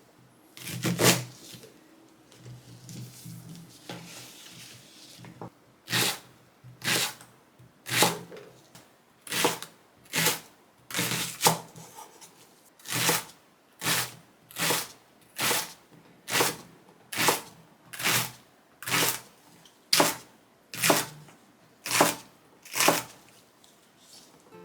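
Crisp soy-sauce pickled vegetables crunching as they are chewed, about twenty crunches at a steady pace of a little under one a second, with softer rustling in the first few seconds.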